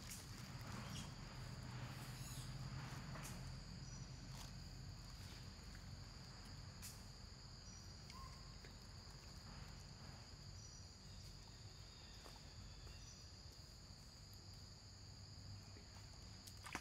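Insects chirring steadily in an even, high-pitched drone, with a few faint scattered clicks.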